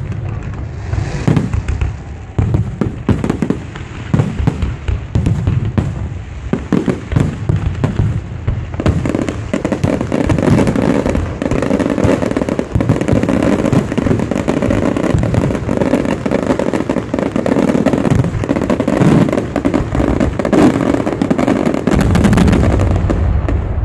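Fireworks display: repeated bangs and crackling, growing from about nine seconds in into a dense, almost continuous barrage.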